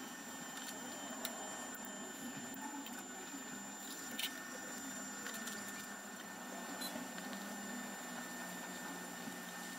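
Quiet room tone with a faint steady high whine, broken by a few soft clicks and rustles from hands handling thread and the nailed string-art board, the sharpest about four seconds in.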